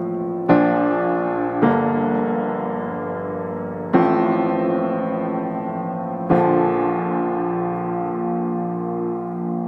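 Slow background piano music: four chords struck and left to ring out.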